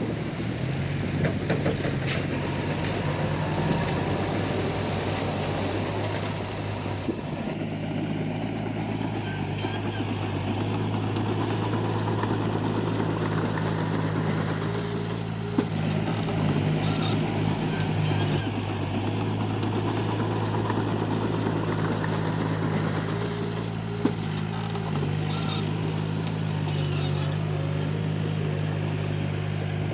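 Komatsu D31P bulldozer's diesel engine running steadily under load while it pushes rubble, with a few sharp metallic knocks, the loudest about halfway through and another near the end.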